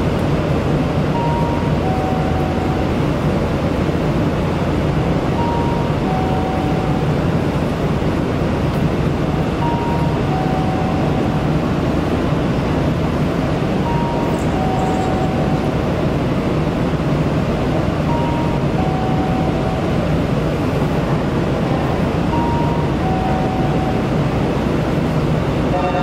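Steady low hum and hiss of a train standing at a station platform. Over it, a two-note electronic chime, a short higher note then a longer lower one, repeats about every four seconds.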